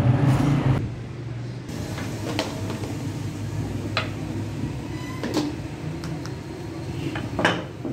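Wooden rolling pin rolling dough on a glass tabletop, with a few sharp knocks and clicks of the pin and dough against the glass; the two loudest come in the second half. A steady low rumble runs underneath.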